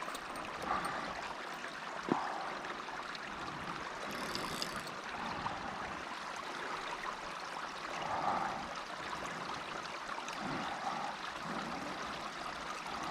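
Creek water running and trickling steadily, with one sharp tap about two seconds in.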